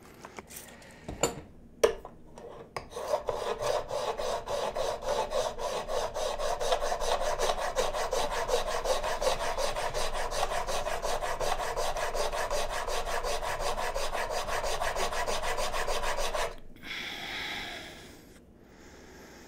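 Plane blade clamped in a Veritas honing guide, pushed back and forth on a diamond sharpening plate: a steady, rhythmic rasping scrape of steel on diamond, stroke after stroke for about thirteen seconds. A few sharp clicks come before the strokes, and a softer, brief rubbing follows them.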